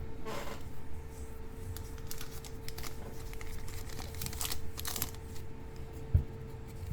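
Foil trading-card booster pack wrappers crinkling and tearing in short rustling bursts as packs are handled and opened, with a soft thump about six seconds in.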